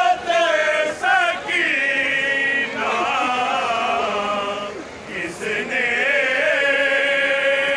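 A group of men chanting a noha, a Shia lament, together: a sung melody of sliding phrases and long held notes.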